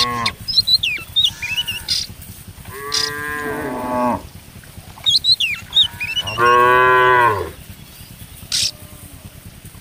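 Cattle mooing: two long moos, one about three seconds in and a louder one at about six and a half seconds, with the end of another moo at the very start.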